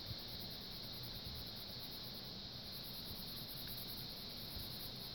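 Faint scratching of a mechanical pencil's graphite on paper as it shades a drawing, over a steady background hiss.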